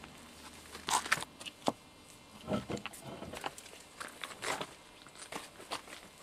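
Footsteps and shoe scuffs on rock as a person scrambles over boulders: irregular scrapes and knocks, loudest about a second in.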